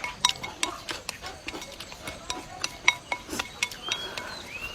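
Rapid sharp clicks and clinks of tableware being handled while eating, several ringing briefly, mixed with short rising chirps from birds.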